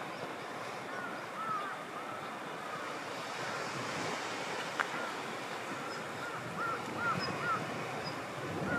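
Steady outdoor rush of wind, with a small bird chirping again and again in short arched notes that come in runs, and a single sharp click about halfway through.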